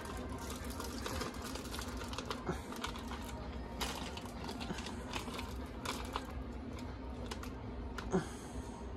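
Scattered light clicks and knocks of items being handled on a kitchen counter, over a steady low hum, with one sharper knock about eight seconds in.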